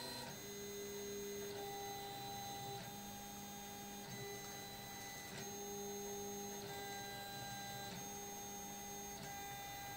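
Stepper motors of a CoreXY 3D printer gantry driving the belts and print-head carriage through a simulated print, honeycomb infill at 80 mm/s. A whining tone jumps to a new pitch every second or so as the moves change.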